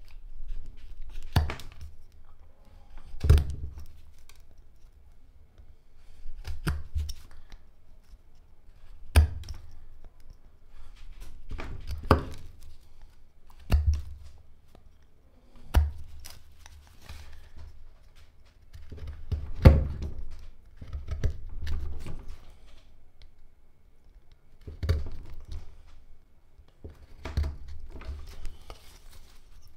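Carving knife cutting into hard black locust (Robinia) wood: a string of short, sharp cuts, each with a dull thump, every second or two, with faint scraping between them.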